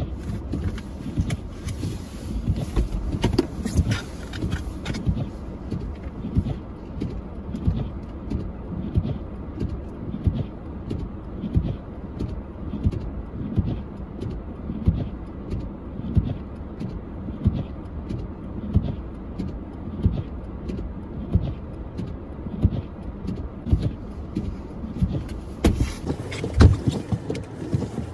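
Footsteps crunching through snow at a steady walking pace, a little under two steps a second, over a low rumble of wind on the microphone.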